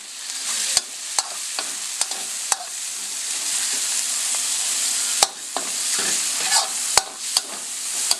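Egg and sauce sizzling in a hot wok while a metal spatula stirs and scrapes it, knocking sharply against the wok several times, loudest about five and seven seconds in.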